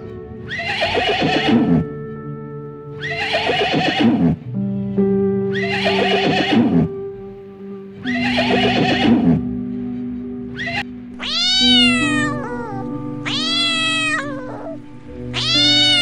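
A horse whinnying four times in a row, each call a shrill, wavering squeal that falls in pitch. A cat then meows twice, and a third meow starts near the end, over steady background music.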